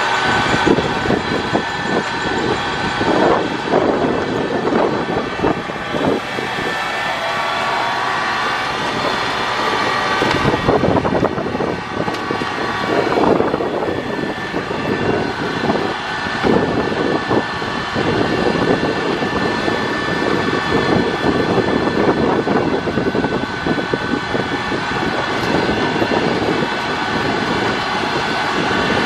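Southport Pier train running along the pier, heard from on board: a steady rumble and rattle of the moving train with several steady whining tones over it.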